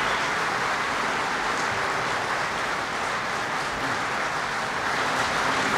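A large crowd applauding, dense clapping that holds steady throughout.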